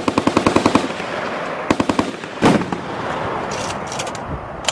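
M2 Browning .50 caliber heavy machine gun firing: a burst of about a second at roughly ten rounds a second, a shorter burst about 1.7 seconds in, then a single heavier bang shortly after.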